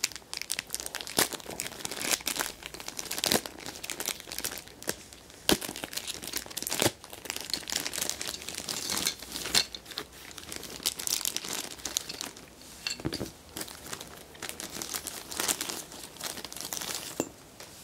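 Clear plastic bag crinkling and rustling in the hands as it is handled and pulled open, with many sharp irregular crackles; it dies down shortly before the end.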